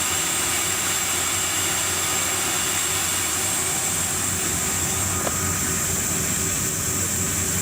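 Gas turbine of an emergency power-supply truck running steadily: a constant high whine over an even rushing noise.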